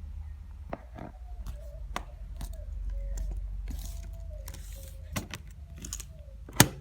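Small scattered clicks and taps of hands handling the internal parts of an opened MacBook as a cable connector is pushed back into its port, with one sharper click near the end.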